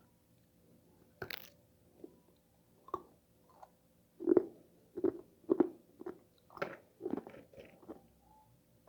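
A person biting into freezer frost and chewing it: one crisp crunching bite about a second in, then a run of loud crunchy chews at roughly two a second from about four seconds in.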